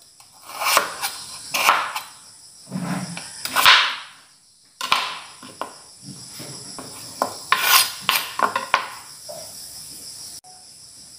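Kitchen knife cutting winter melon (wax gourd) into chunks on a wooden chopping board: a series of irregular cutting strokes, the blade knocking on the board, with a softer thud about three seconds in.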